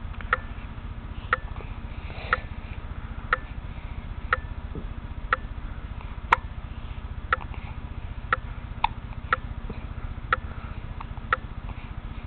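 Short sharp ticks about once a second, very evenly spaced, over a steady low hum; one tick about halfway through is louder than the rest.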